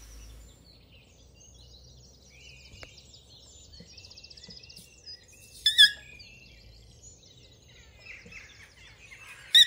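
Several small birds singing and chirping, with two louder, sharper calls, one about halfway and one near the end.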